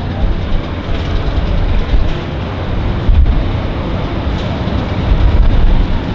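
Distant Pitts Model 12 aerobatic biplane's nine-cylinder radial engine: a loud, uneven low drone, with wind buffeting the microphone.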